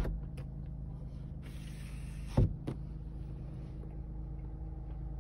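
Steady low hum inside the cabin of a running 2017 Lexus GS350, with one solid thunk about two and a half seconds in, the loudest sound, followed by a lighter knock.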